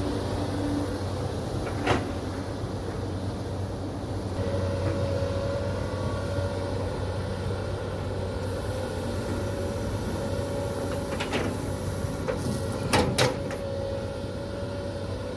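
CAT 320D L long-arm excavator's diesel engine running steadily, with a steady hydraulic whine coming in about four seconds in. Sharp knocks from the working machine sound once about two seconds in and again near the end, the last two in quick succession.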